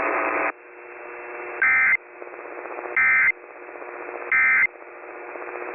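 Three short bursts of NOAA Weather Radio SAME end-of-message data tones, a warbling digital chirp about a third of a second long, repeated about 1.3 s apart. Between them is radio hiss with a faint steady hum.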